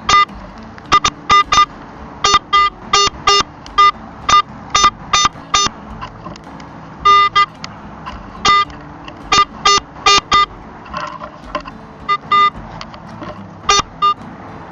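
Garrett AT Pro metal detector sounding dozens of short, high-pitched beeps as its coil sweeps over targets in the ground. The beeps come at irregular intervals, singly and in quick pairs and triples, with a fainter, softer stretch just past the middle.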